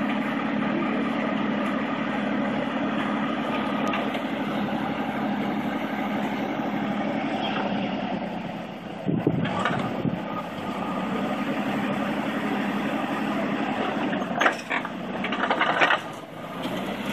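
Bucyrus-Erie 10-B cable excavator running steadily as it works a digging cycle, with brief louder knocks and scrapes about nine seconds in and again near the end.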